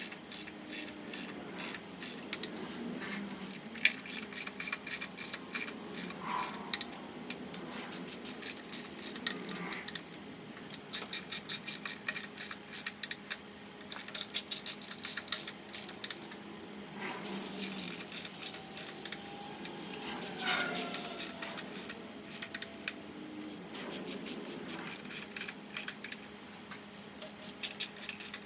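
Ratcheting wrench clicking in rapid runs as intake manifold bolts are run down in sequence toward a first torque pass of 44 inch-pounds. Short pauses come between runs as the tool moves from bolt to bolt.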